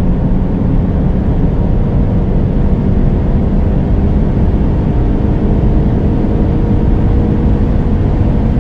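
Audi RS7's 4.0-litre twin-turbo V8 pulling at full throttle above 220 km/h, heard from inside the car as a loud, steady, dense rush of engine, wind and road noise.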